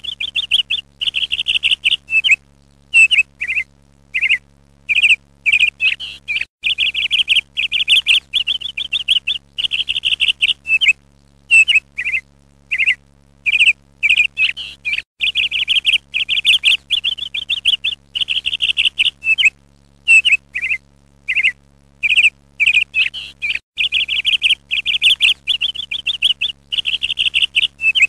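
Small songbird chirping and trilling in quick bursts, some notes sliding down in pitch, over a faint steady low hum.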